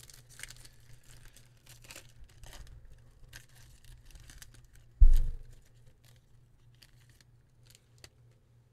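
Cellophane wrapper of a trading-card pack crinkling and tearing as it is ripped open by hand, with one dull thump about five seconds in and only faint crinkles after.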